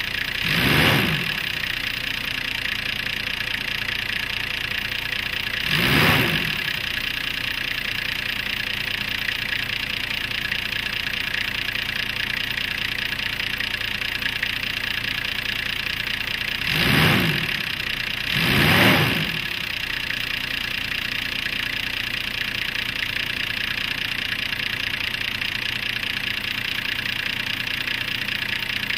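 Nissan TD42 4.2-litre straight-six turbodiesel idling steadily while warming up, with diesel clatter. It is briefly revved four times: about a second in, at about six seconds, and twice close together around seventeen and nineteen seconds.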